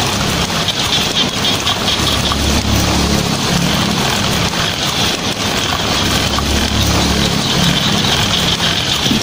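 Heavy rain drumming steadily on a tin roof, with a low rumble of thunder that swells and fades a couple of times.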